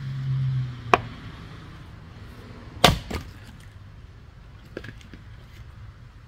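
A heavy splitting tool strikes a wet, stringy firewood round with sharp wooden chops. There is one hit about a second in, then the loudest hit near the middle with a second knock right after it, and a few light knocks later.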